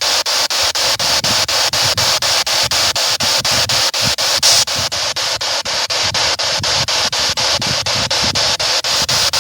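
Spirit box sweeping through radio channels: loud hiss of static chopped into rapid, even pulses, about five a second.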